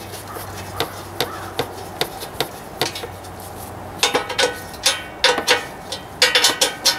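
Metal parts on a zero-turn mower being handled and fitted by hand around its deck-height pin: scattered clicks and knocks, turning into a quicker run of clinking, lightly ringing knocks over the last three seconds.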